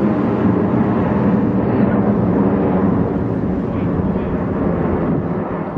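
Jet engine noise from a formation of six F-16 Fighting Falcons flying overhead: a steady rumble that eases off slightly near the end.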